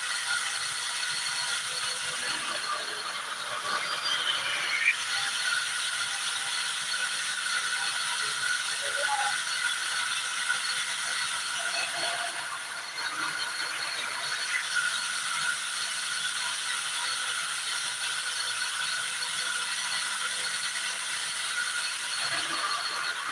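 Woodworking saw machine (ara machine) running steadily, a constant high-pitched mechanical whine and hiss with a faint low hum.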